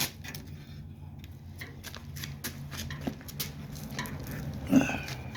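Light scattered taps and clicks of loose sheet-metal body parts being handled, over a steady low hum. Near the end there is one short, louder sound that bends in pitch.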